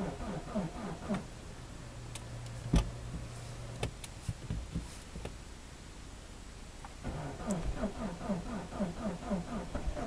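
The starter of a 2004 Mazda Demio 1.5 slowly cranks its cold engine at −25 °C in a cold-start attempt, about four compression strokes a second. There is a short burst of cranking, then a hum with a few sharp clicks, then a longer burst starting about seven seconds in. The engine does not catch.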